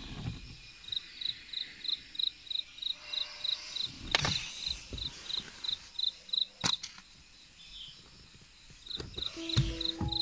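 An insect, likely a cricket, chirping steadily at one high pitch, about three to four chirps a second, with a pause of a couple of seconds. A few sharp knocks break in, and music comes in near the end.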